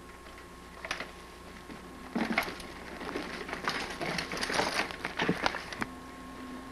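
Crunching and clattering on a rocky, root-strewn forest trail: a single knock about a second in, then a dense run of clicks and rattles for about three and a half seconds, over a faint steady hum.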